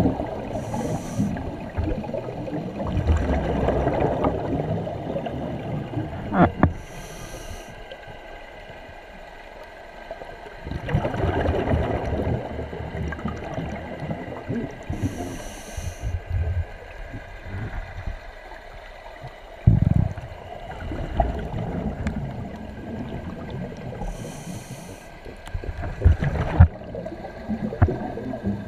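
Scuba diver breathing through a regulator underwater: a short hissing inhale every six to nine seconds and longer rumbling gurgles of exhaled bubbles between them, with a few sharp clicks.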